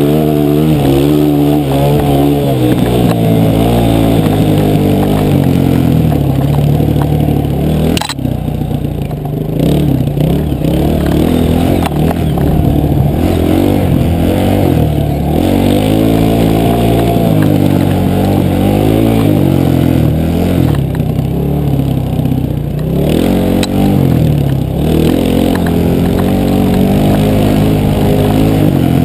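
Enduro dirt bike's engine, heard close from the rider's helmet, revving up and down repeatedly while riding a dirt course. A single sharp knock about eight seconds in.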